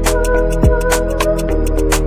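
Background electronic music with a steady drum beat and sustained chords.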